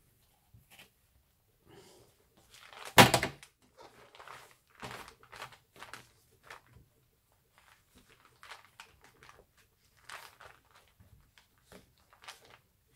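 Paper and card handling as twine is pulled and knotted through the spine of a hand-bound junk journal: scattered short rustles and scrapes, with one sharper thump about three seconds in.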